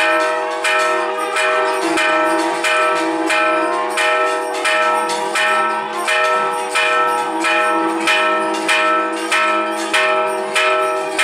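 A Hindu temple bell is rung steadily, about three strikes every two seconds. Each strike rings on into the next, giving a continuous ringing.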